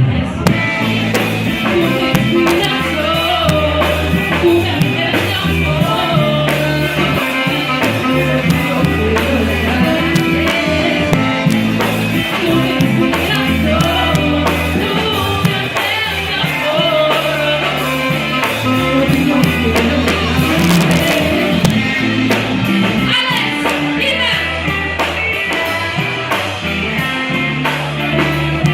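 Live rock band playing: guitar, bass and drums with a voice singing, loud and steady.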